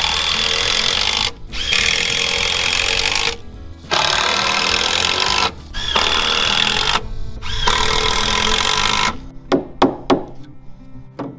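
Cordless impact driver driving screws into a wooden porch frame in five runs of about one to one and a half seconds each, each starting with a rising whine. Near the end come several sharp hammer blows on the wood.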